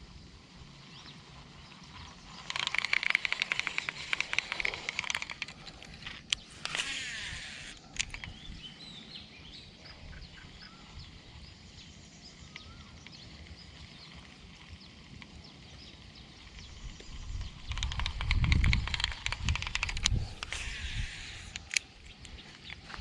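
Fishing reel whirring in two spells of fast, dense clicking, about two and a half seconds in and again near the end, with a few single sharp clicks between; birds call faintly in the background.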